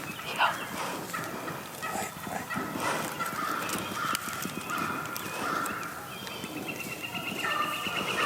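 Turkey calls over light rustling and clicks. There are broken calls in the middle and a rapid trilling call in the last second or so.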